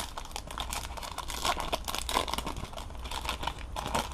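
Foil wrapper of a Topps Chrome baseball card pack crinkling as it is torn and peeled open by hand, a dense run of small crackles.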